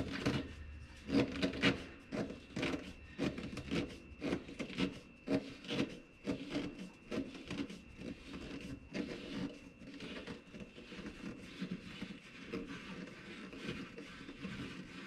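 Hands twisting a Bennett trim tab actuator's cylinder body to unscrew it: irregular rubbing and scraping of hands and metal, with a string of sharper knocks in the first several seconds that settles into quieter, denser rubbing.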